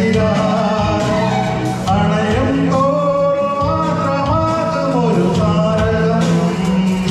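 Man singing a Malayalam film song into a handheld microphone over a recorded backing track with a steady beat, amplified through PA speakers. He holds one long note about three to five seconds in.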